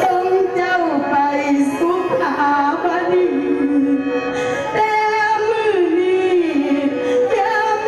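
Music: a solo voice singing long, wavering notes that slide from pitch to pitch in an ornamented melodic line.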